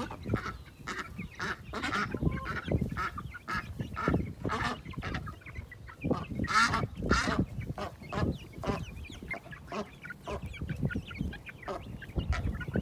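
Domestic ducks quacking over and over, mixed with chickens clucking, over a steady low rumble of wind on the microphone.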